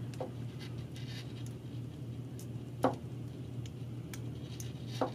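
Faint handling of a wiring harness as a crimped wire terminal is worked into a plastic automotive connector, with two small sharp clicks, about three seconds in and at the end, over a steady low hum.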